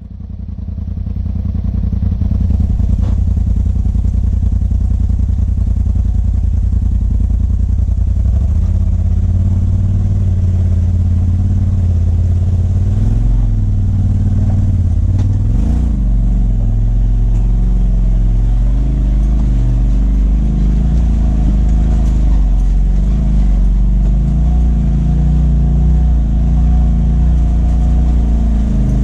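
Side-by-side UTV engine running at low trail speed, its pitch rising and falling with the throttle at around 3,000 rpm. It fades in over the first couple of seconds.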